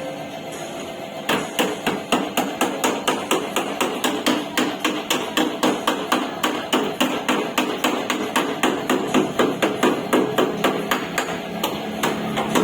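Hand hammer beating out a car's sheet-metal body panel, with rapid, even metallic strikes at about four or five a second. The strikes resume after a brief pause about a second in.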